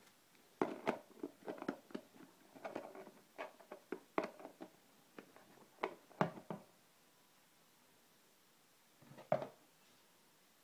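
Handling noises from a plastic moisture-absorber container and its cardboard box: a quick run of light clicks, knocks and rustles for about six seconds, then one more knock about nine seconds in.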